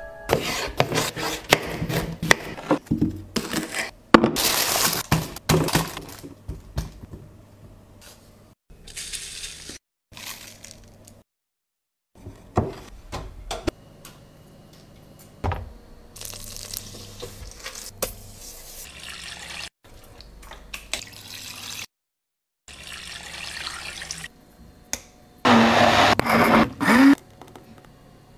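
Kitchen sounds of tomato soup being made, in short separate clips: water running and splashing, with sharp knocks and taps between.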